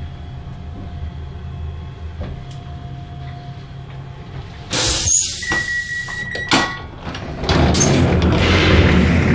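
Irish Rail train's low rumble at a standstill, then about five seconds in a sudden hiss of air as the carriage door is released, a short steady beep and a few clicks. Near the end the sliding passenger door opens, letting in loud noise from the platform.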